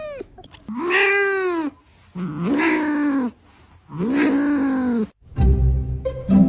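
Domestic cat meowing three times, each meow about a second long, rising then falling in pitch. About five seconds in, music with bowed strings starts.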